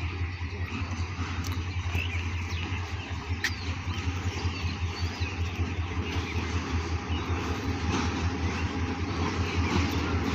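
Approaching diesel locomotive hauling a passenger train: a steady low engine drone that grows gradually louder as the train nears.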